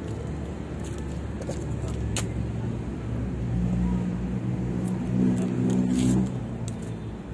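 A motor vehicle's engine running with a low, steady hum that grows louder about halfway through and dies down near the end. A couple of sharp clicks sound over it.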